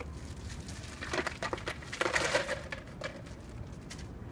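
Ice cubes rattling out of a plastic bag into a plastic bucket, with the bag crinkling, in two clattering pours about a second and two seconds in.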